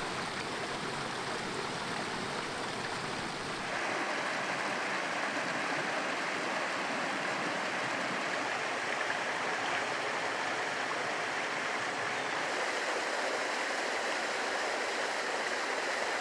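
A rocky mountain brook running over stones and small cascades: a steady rush of water. It shifts abruptly about four seconds in to a brighter, hissier rush with less low rumble, and shifts again around twelve seconds.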